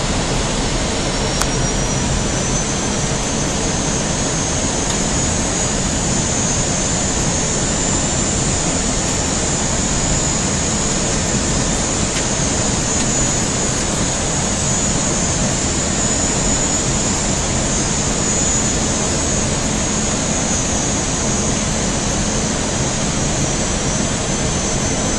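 Steady cockpit noise on an Airbus airliner's flight deck on approach: a constant rush of airflow and engine noise, with a thin, steady high-pitched whine over it.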